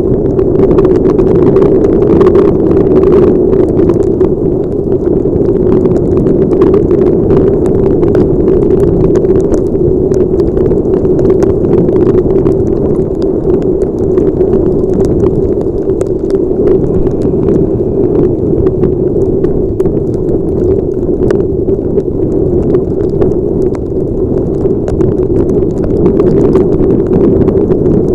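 Heavy rain and wind rushing over a helmet-mounted camera's microphone: a loud, steady rush dotted with many small, sharp ticks of raindrops striking the helmet and camera housing.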